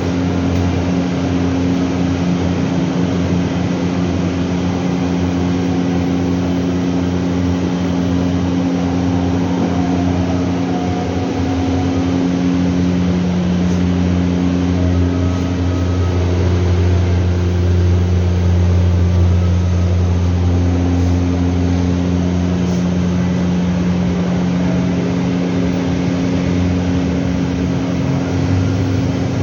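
Several LG washing machines running together during a function test after maintenance: a steady, low machine hum. Its tone shifts slightly about twelve seconds in and again around twenty seconds.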